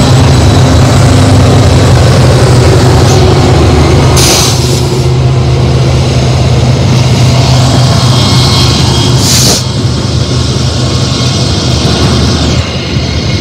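BNSF diesel-electric locomotives passing at close range: a loud, steady deep engine drone mixed with wheel and rail noise. Two short bursts of hiss cut through about four and nine seconds in.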